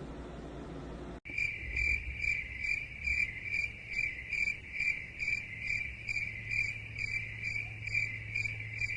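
An insect, cricket-like, chirping in an even pulsing rhythm of about two to three chirps a second, starting abruptly about a second in, with a low steady hum underneath.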